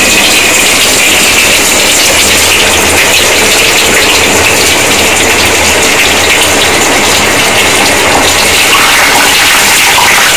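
Vegetable cutlets deep-frying in hot oil: a loud, steady sizzle of bubbling oil around the patties.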